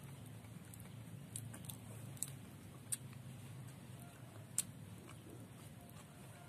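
A person eating by hand: quiet chewing with a few sharp smacking clicks, over a low steady hum.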